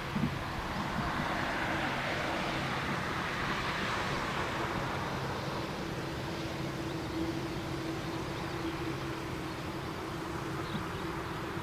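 Boeing 747-8F's four GEnx-2B jet engines at taxi idle as the freighter rolls past: a steady jet hiss over a constant low hum.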